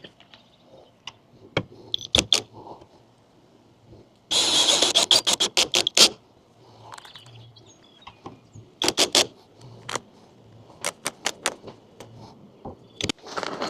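Power drill driving screws into the wood platform: one loud run of about two seconds starting about four seconds in, then shorter bursts near the middle and end, with knocks and clicks in between.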